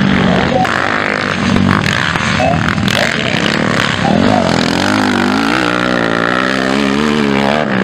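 Motocross bike engine racing on a dirt track, revving up and down close by from about halfway through, its pitch wavering with the throttle.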